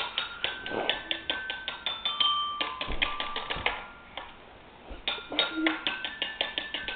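A quick tinkling tune of high, bell-like struck notes, about four or five a second. It drops away for about a second partway through, then starts again.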